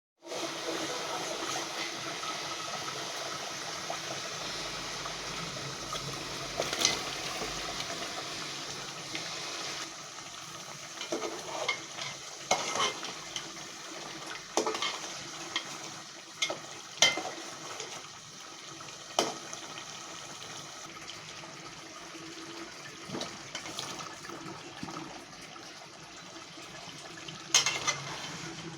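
Chicken frying and sizzling in a pan while it is stirred, the utensil knocking and scraping against the pan several times.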